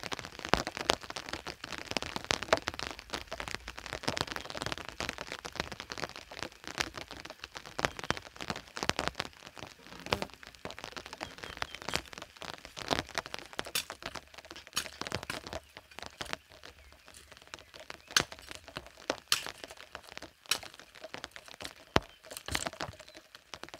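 Wood fire crackling in a fireplace: irregular sharp pops and snaps over a soft hiss that thins out about halfway through.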